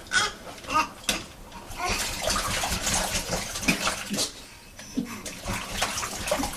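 Bathwater splashing irregularly as a small child plays in the tub, in bursts with a short lull just after the middle.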